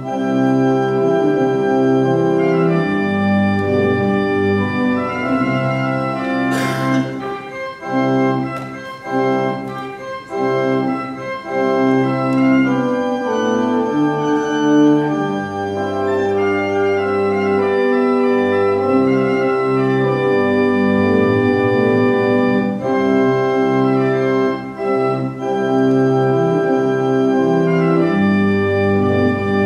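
Church organ playing the postlude: full sustained chords changing every second or two over long held bass notes.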